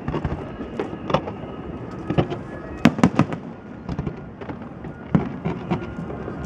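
Aerial fireworks shells bursting in irregular clusters of sharp bangs and crackles, the loudest cluster about three seconds in.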